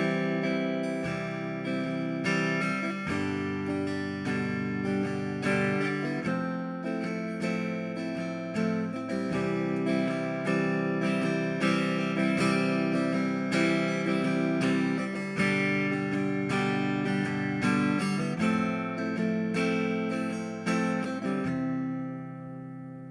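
Guitar strumming a simple steady rhythm, changing chords in time between C major, G major and Fmaj7. The last chord is left to ring and fades away near the end.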